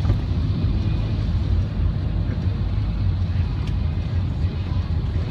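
Steady low rumble of a car driving along, heard from inside the cabin: engine and road noise.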